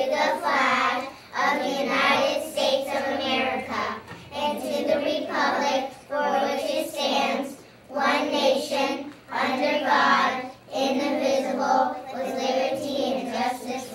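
A group of young children reciting a pledge together in unison, in a sing-song chant of short phrases with brief pauses between them.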